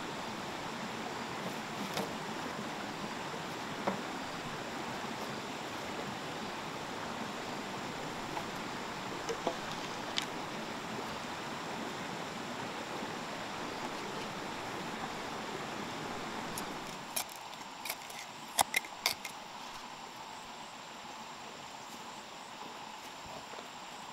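A steady rush of flowing stream water, with scattered sharp knocks as green bamboo poles are handled and laid on the ground. The rush drops a little about two-thirds of the way through, and a quick run of louder clicks and knocks follows.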